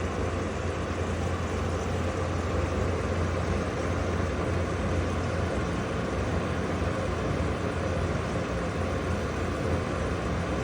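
Vintage R12 dehumidifier running: a steady low hum from the compressor under the even rush of its fan moving air.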